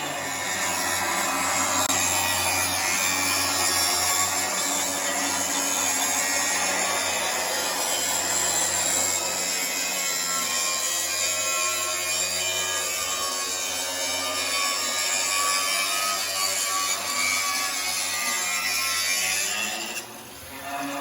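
A machine grinding or cutting steadily under load, with a hissing, rasping sound. It stops abruptly near the end.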